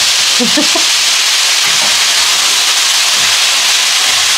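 Pieces of rabbit frying in hot oil in a wide paella pan: a steady, loud sizzle.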